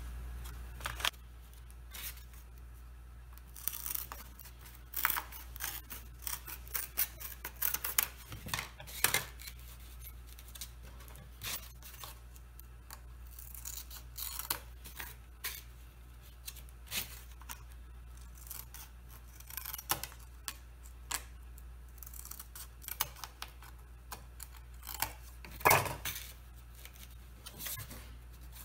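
Thin poplar veneer being cut and trimmed to fit: an irregular run of short, sharp snips and cracks, with the veneer handled against the table top. A steady low hum sits underneath.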